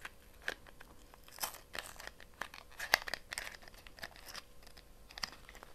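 Small cardboard advent-calendar box being opened by hand: irregular crinkling and tearing of card and paper with scattered sharp clicks, one louder snap about three seconds in.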